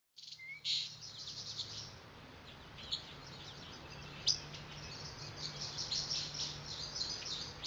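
Small birds chirping, a busy run of short high calls, starting suddenly and continuing throughout over a faint steady low hum.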